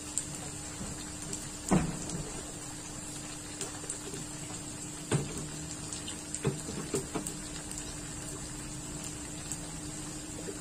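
A few short plastic knocks and clunks from a blender jar and its lid being handled. Behind them runs a steady low hum with a faint hiss.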